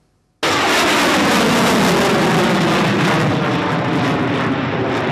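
Su-27 fighter's twin AL-31F turbofan engines heard in flight: loud, steady jet noise that starts abruptly about half a second in.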